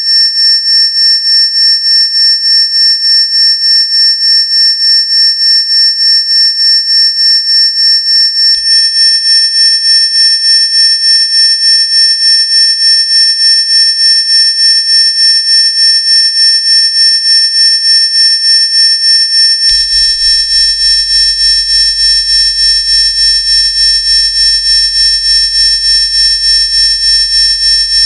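Loud, high-pitched electronic drone of several steady tones stacked together from a modular synthesizer, pulsing in a fast, even rhythm. More tones join about eight seconds in, and near twenty seconds in the sound thickens and a low hum starts underneath.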